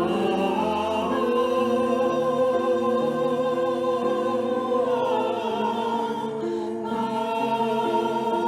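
Sacred vocal music: singing with a marked vibrato over held, slowly changing accompaniment chords. The singing starts right at the beginning and swells about a second in.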